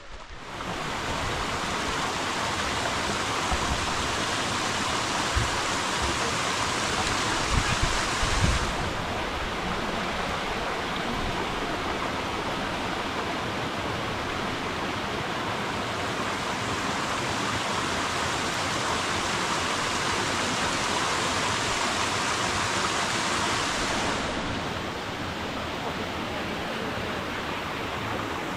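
Mountain waterfall rushing steadily in a loud, even roar, with some low buffeting on the microphone a few seconds in.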